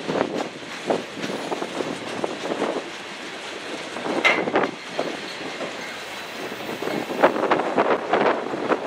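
Loaded freight train of tank cars rolling past, its steel wheels clicking irregularly over the rail joints over a steady rumble, with a brief high-pitched wheel squeal about four seconds in.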